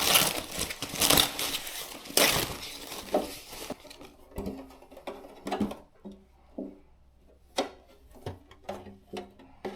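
Packaging wrap crinkling and rustling as parts are unwrapped from their box, dying down after about four seconds into a few scattered light knocks and taps.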